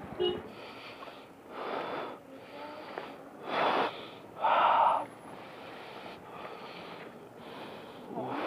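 A person breathing hard: a series of short, noisy breaths in and out about one to two seconds apart, the loudest a sharp puff about four and a half seconds in. A brief click sounds just after the start.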